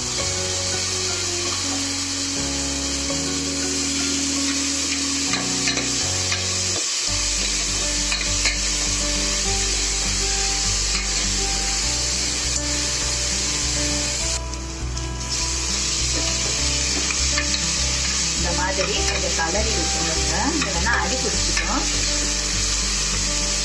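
Chopped tomatoes and onions sizzling in oil in an aluminium pressure cooker while being stirred with a metal ladle, as the tomatoes are sautéed until soft. The sizzle is steady, with a brief dip a little past halfway.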